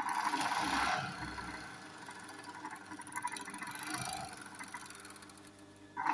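Industrial overlock sewing machine running in short stitching bursts: a loud run at the start, a softer one about three to four seconds in, and another starting right at the end.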